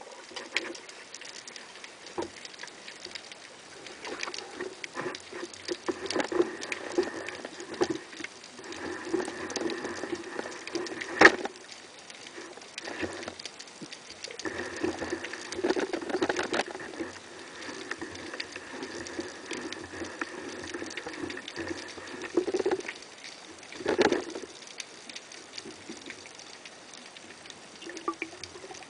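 Underwater crackling and clicking, with a sharp knock about 11 seconds in and another about 24 seconds in, and a faint steady hum during two long stretches.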